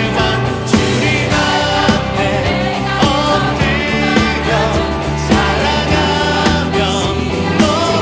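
Contemporary Christian worship song sung by a worship team of mixed voices with a male lead, over instrumental accompaniment with a steady beat.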